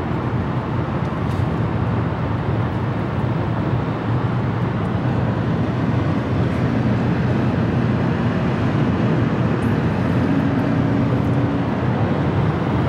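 Steady road noise of a car cruising at highway speed, heard from inside the cabin: tyre rumble and engine hum with no breaks.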